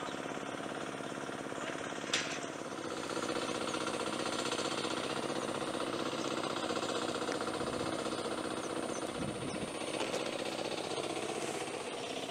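Two-wheel hand tractor's small engine running steadily with a rapid, even pulse, a little louder from about three seconds in. A sharp click sounds about two seconds in.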